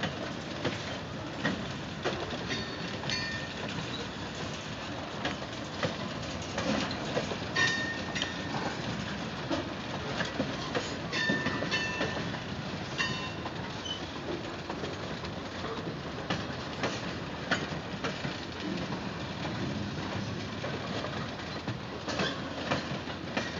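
Freight cars, covered hoppers and tank cars, rolling past on steel wheels, clicking over rail joints, with brief high-pitched wheel squeals a few times, most around the middle.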